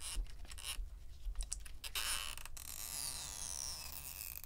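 Clicks and taps of a spudger and tweezers working at the battery. About two seconds in comes a long hissing, squeaking sound, with high squeaks sliding down in pitch, as a stretch-release adhesive pull tab is drawn out from under a MacBook Pro battery cell.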